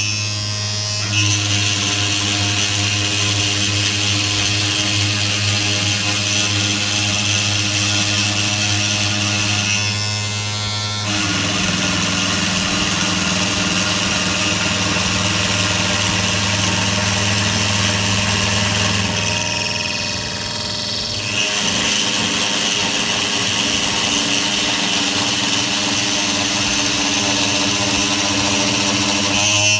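Servo-driven CNC machine running, a steady electric hum with a high whine over it. The mix of tones shifts about eleven seconds in and again around twenty seconds in.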